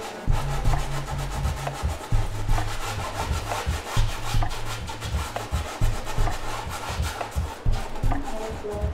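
Background music with a deep bass line that steps between held notes and a steady beat, with a dry rubbing sound over it.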